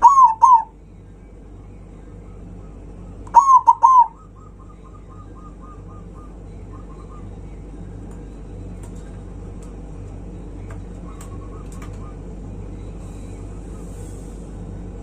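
Zebra dove (perkutut) cooing: two loud short phrases of about three notes each, one at the start and one about three and a half seconds in. The second is followed by a fainter quick run of notes. A steady low hum runs underneath.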